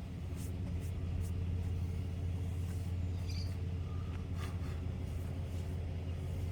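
A vehicle engine running steadily at idle: an even low hum, with a few light clicks and taps over it.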